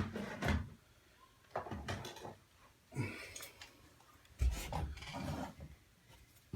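A sharp click, then several short bouts of plastic rubbing and scraping about a second apart: hands working the wiring plug off the back of an old hard-wired smoke detector.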